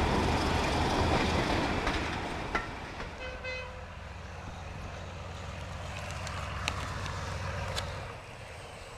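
A passenger train running along the rails, heard from inside a carriage, for the first two or three seconds. Then a Class 31 diesel locomotive approaching with coaches sounds its horn in one short toot about three seconds in. Its engine runs as a steady low drone that fades near the end.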